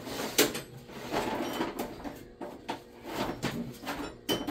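Irregular clicks and knocks of metal tools and parts being handled on a sheet-metal workbench, the sharpest about half a second in.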